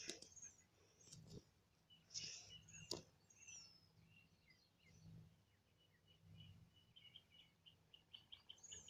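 Near silence with faint bird chirps in the background, ending in a quick run of short repeated chirps.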